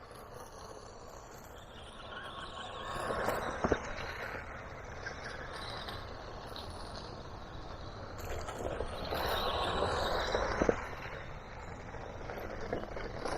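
Small electric RC car's motor whirring as it drives over twigs and roots, swelling twice as it speeds up, with a couple of sharp knocks.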